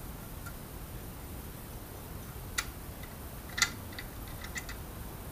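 Small metallic clicks of an Allen key working the set screw in the chrome wall bracket of an Ikea Voxnan shelf rail, to unscrew the bracket. A few scattered ticks, with a sharper click about two and a half seconds in and the loudest about a second later, over a low steady room hum.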